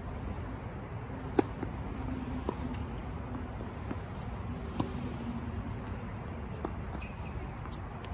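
Tennis ball hit back and forth in a rally on an outdoor hard court: a sharp racquet pop about a second and a half in, the loudest sound, then fainter hits and bounces a second or two apart, over steady background noise.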